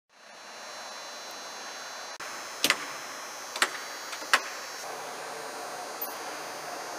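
Steady hangar background noise fading in, with three sharp clicks about a second apart near the middle, from hands-on maintenance work on an AH-64 Apache helicopter's panels and rotor head.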